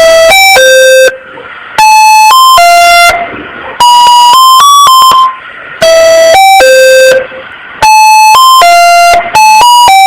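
Electronic emergency alert alarm tone, very loud and buzzy: a short phrase of three or four notes at changing pitches, repeated about every two seconds with a brief pause between phrases.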